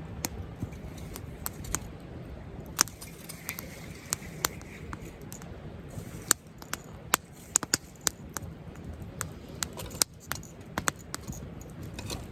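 Wood campfire crackling, with irregular sharp pops and snaps, over the steady murmur of a shallow river.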